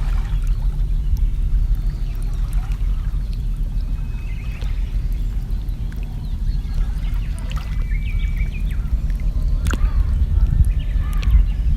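Water trickling and lapping around a kayak over a steady low rumble, with faint, scattered bird chirps and whistles in the mangrove.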